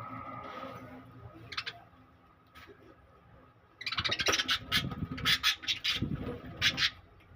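Lovebirds giving a quick series of sharp, high chirps about four seconds in, over a low rumble.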